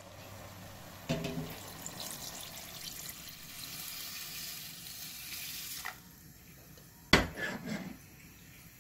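Water poured from a second vessel into a stainless steel pot of sautéed beef and seaweed, a steady splashing rush that starts about a second in and stops shortly before six seconds. About a second later comes a single sharp clank, the loudest sound.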